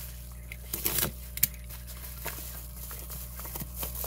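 Packaging being handled and unwrapped: irregular crinkling, rustling and tearing, with a few sharper clicks, the loudest about a second in.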